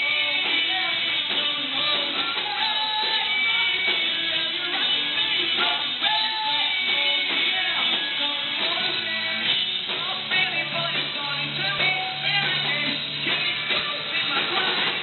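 Rock band playing, with a singer's voice over electric guitars. The sound is dull and cut off in the treble.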